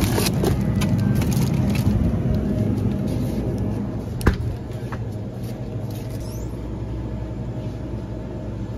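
Steady low rumble of store background and phone handling, with a glass freezer door shutting in a single sharp knock about four seconds in.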